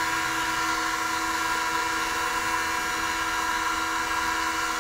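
Small DC gearmotor running steadily with an even whine, driving a turntable through a toothed flat belt while a hand drags on the table to load the motor.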